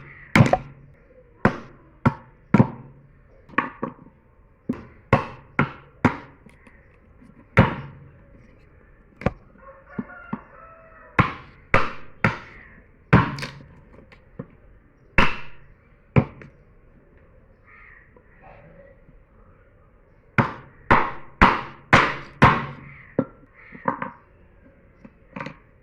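Repeated sharp chopping strikes of a blade into hard black wood, coming irregularly about once a second with quicker runs of several blows in a row.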